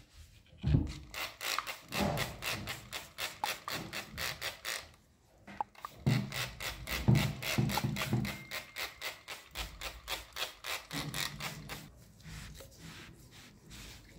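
A hand-pump trigger spray bottle squirting liquid onto a brass vase in quick repeated sprays, several a second, with a brief pause about five seconds in. A few dull knocks come as the vase is handled over the bowl, and the sound turns softer near the end.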